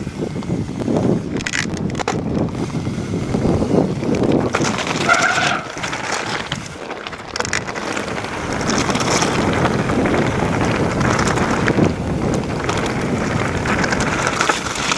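Wind buffeting the microphone of a mountain bike speeding downhill, mixed with the crunch and rattle of its tyres and frame over a loose stone track. There is a brief squeak about five seconds in.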